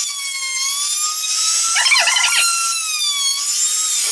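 Trim router (laminate trimmer) motor whining at full speed while routing a groove in an MDF panel, with a brief rougher burst about two seconds in. Near the end the pitch starts to fall as the router is switched off and spins down.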